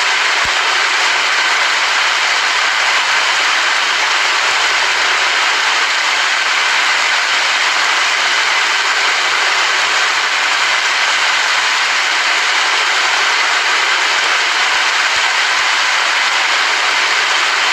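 Steady rain falling, a dense even hiss that does not rise or fall.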